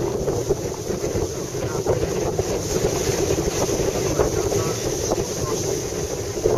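Loud mountain wind buffeting the microphone: a steady rushing roar that surges in gusts.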